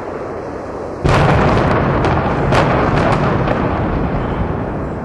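Building implosion with demolition charges going off: a sudden heavy blast about a second in, then a rolling low rumble with a string of sharp cracks over the next few seconds.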